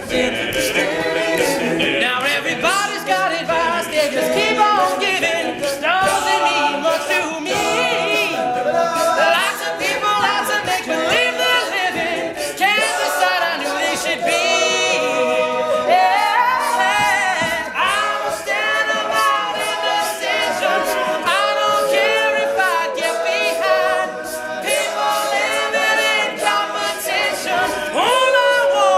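All-male a cappella group singing in harmony, voices only with no instruments.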